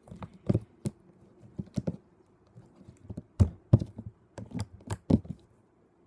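Sticky homemade slime being kneaded, pressed against a tabletop and stretched by hand, giving irregular sharp clicks and pops, a few louder ones a little past the middle.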